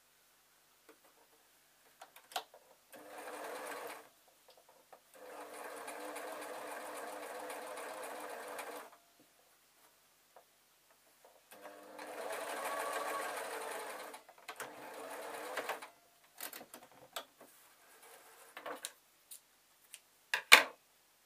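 Electric sewing machine stitching a seam in several runs of one to four seconds, with short pauses between. Small handling clicks follow, and a single sharp click near the end is the loudest sound.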